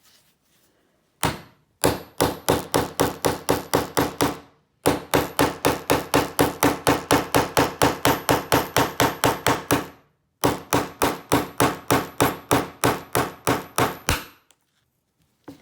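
Rapid, even hammer taps, about five a second, driving a blade into the plastic body of a lockout padlock to cut a groove around it. They come in three runs with two brief pauses.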